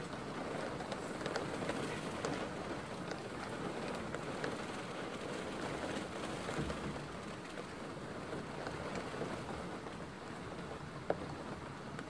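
Steady hiss of falling water with many small separate drop ticks, and one sharper tick about eleven seconds in.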